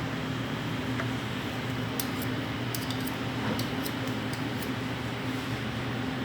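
Steady mechanical hum of kitchen ventilation, with a scatter of light metallic clicks and clinks from utensils in the middle.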